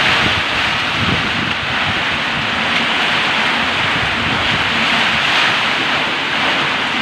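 Heavy rain pouring down in a windstorm: a loud, steady hiss of rain with wind gusting through it.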